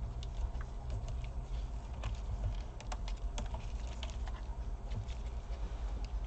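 Irregular light clicks and taps of small tools and parts on a laptop's plastic case during reassembly, over a steady low hum.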